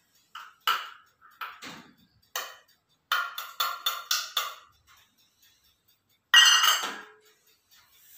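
Stainless steel measuring cups and bowls clinking and tapping against a steel mixing bowl as ingredients are tipped in. Scattered single taps, then a quick run of about six taps around three seconds in, and a louder clatter about six and a half seconds in.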